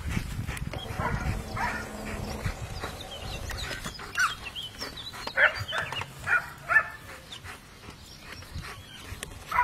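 Dogs barking in short, sharp calls, with several loud barks about four to seven seconds in.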